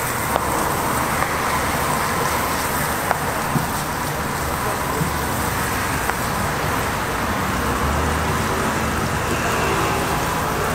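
Butter sizzling on a hot steel flat-top griddle as a block of butter is rubbed over it and bread slices are laid down to toast, with a few light clicks.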